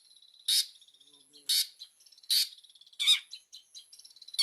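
Long-tailed shrike giving four short, harsh calls about a second apart, over a faint, thin, high, steady note.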